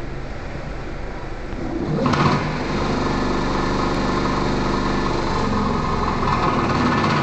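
Roller brake tester's electric motors driving the rollers under a car's rear wheels, a steady machine whine and rumble that grows louder about two seconds in. The rear brakes are being tested for efficiency.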